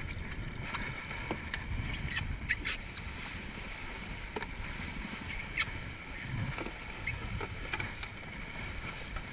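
Water rushing and splashing along the hull of a wooden sailing log canoe driving hard under sail, over a steady low rumble, with a few brief sharp clicks.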